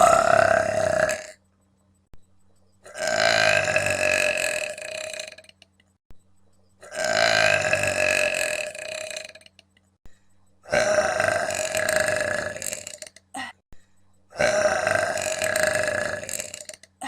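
A woman belching on command in a run of long, loud, deep belches. First comes a short one, then four drawn-out belches of about two and a half seconds each, with short silent gaps between them.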